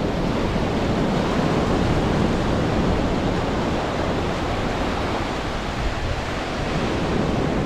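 Sea surf washing onto a beach, mixed with wind on the microphone: a steady rushing noise that swells slightly and eases a little near the end.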